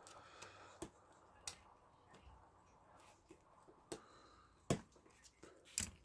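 Small cutting pliers clicking and tapping against a Westclox Baby Ben alarm clock movement's brass plate as their jaws are worked under a stuck pressed-on brass part. There are a handful of sharp clicks, irregularly spaced, the loudest near the end.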